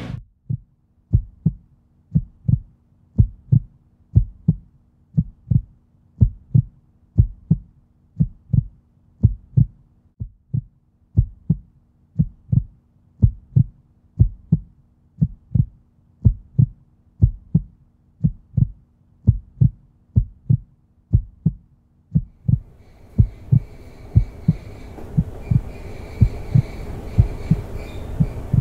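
Heartbeat sound effect: slow, steady lub-dub thumps about once a second over a faint low hum. About three-quarters of the way through, a hissing background swells up under the beats.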